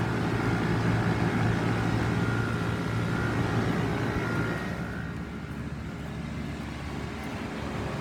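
York central air-conditioner condensing unit running: a steady hum from the compressor with the condenser fan's rushing air, easing off a little after about five seconds.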